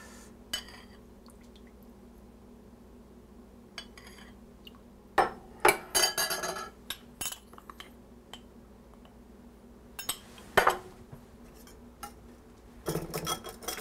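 A small metal whisk clinking against a small glass bowl while mixing a flour-and-broth slurry for gravy: scattered taps, louder clinks about five to six seconds in and again at ten, then rapid whisking near the end. A faint steady low hum runs underneath.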